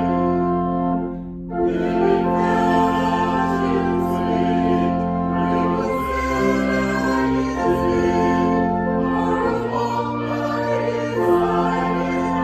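A choir singing a hymn in held chords with instrumental accompaniment, pausing briefly about a second in.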